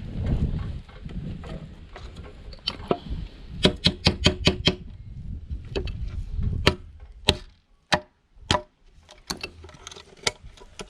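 A flathead screwdriver prying and knocking at a speaker's internal parts to work a small circuit board loose: handling rumble at first, then a quick run of about six sharp clicks around four seconds in, followed by scattered clicks and taps.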